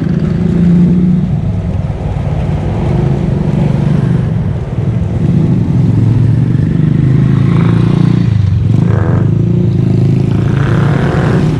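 Small motorcycle engine running as it is ridden along a street, a steady low drone whose pitch shifts a little with speed.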